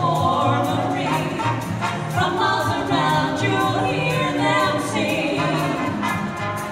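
Female vocal trio singing in close harmony into microphones over an accompaniment with a bass line, heard through a PA system.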